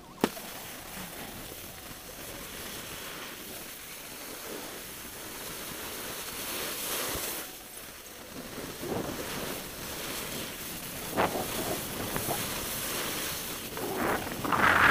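Snow bike skis sliding and carving over groomed snow, a steady hiss mixed with wind on the microphone. There are a few sharp scrapes about three-quarters through and a louder rush near the end.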